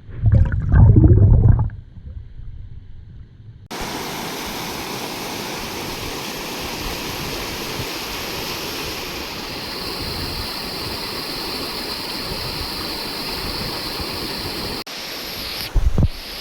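Steady rushing water, a forest stream or waterfall, starting abruptly about four seconds in. Before it comes a loud low rumble, and near the end there is a short thump.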